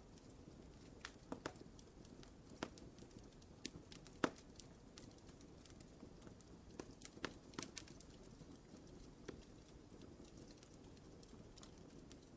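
Wood fire burning in a fireplace, a low steady hiss with sharp crackles and pops at irregular intervals, the loudest pop about four seconds in.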